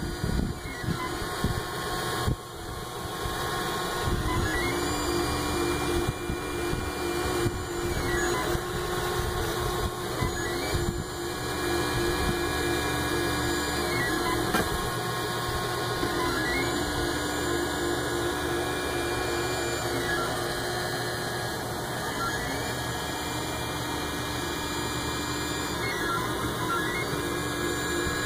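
3D printer's stepper motors whining steadily as the print head traces the walls of a print, the pitch dipping and sliding at each change of direction.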